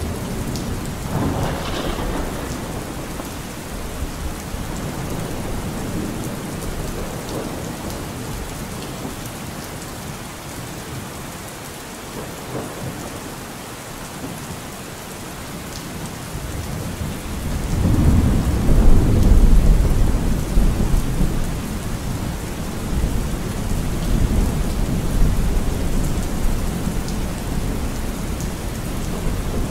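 Steady rain with thunder. A louder, low rolling rumble swells about 18 seconds in and dies away over a few seconds.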